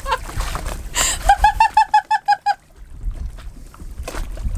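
High-pitched laughter, a quick run of about nine even 'ha' notes, after a short hiss about a second in, over a low rumble.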